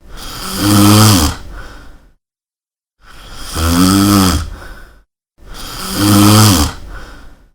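A person snoring three times, each deep snore lasting about two seconds and swelling to a loud peak before trailing off, with short silent gaps between them.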